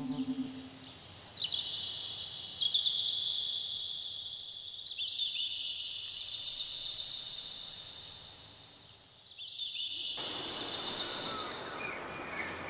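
High, trilling chirps that overlap in layers, and from about ten seconds in the rustle and crunch of footsteps through dry fallen leaves.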